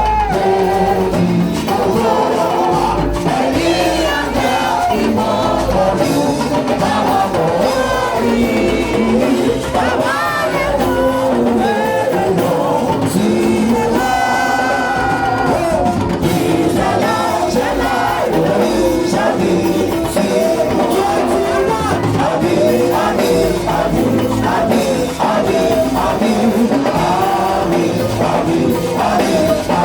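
Live church music: a voice or voices singing over a band with drums, loud and continuous.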